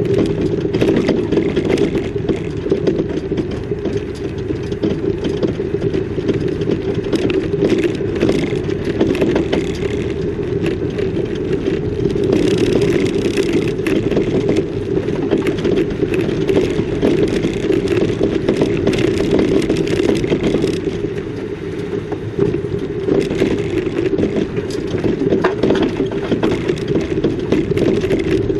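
A vehicle driving: steady engine and road noise with constant small rattles and knocks throughout.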